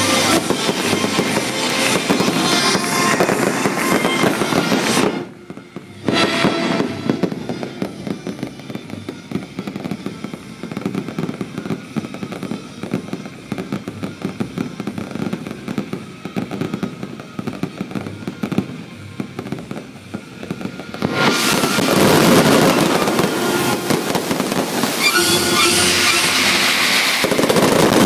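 Fireworks going off in dense volleys of rapid crackling and bangs. They are loud for the first five seconds and dip briefly. A quieter stretch of fast crackle follows, then they build loud again about 21 seconds in.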